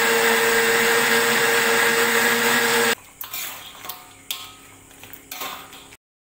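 Panasonic MX-GM1011 blender running steadily with a motor hum, grinding shallots, garlic and ginger into a paste. It cuts off abruptly about three seconds in. Then a spoon scrapes and knocks against a wok as crab pieces in curry are stirred, with a few sharp clacks.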